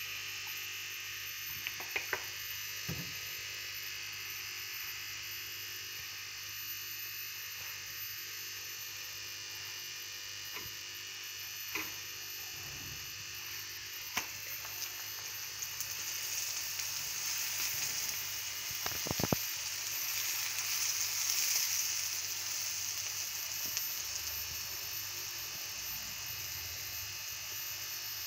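Oil sizzling on a hot iron tawa as a paratha fries, a steady hiss that grows louder about halfway through, with a few light clicks and taps of the utensils.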